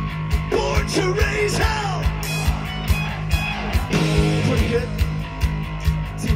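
Live hard rock band playing: a steady drum beat over a sustained bass and electric guitar, with a pitched line sliding up and down over it twice.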